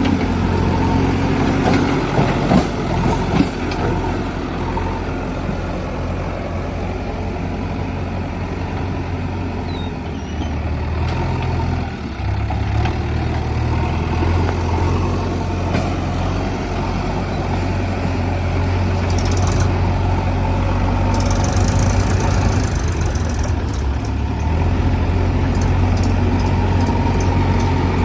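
Diesel engines of a JCB 3DX backhoe loader and a tractor running steadily while the loader works, with the engine note shifting about twelve seconds in. A few sharp knocks come about two to three seconds in.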